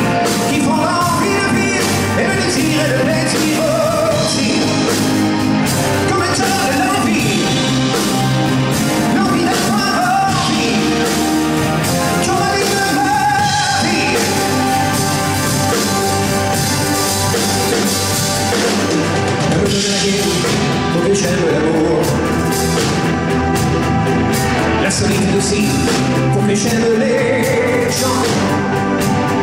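Live rock band playing: electric guitar, drum kit and keyboards, with a man singing lead vocals into a microphone.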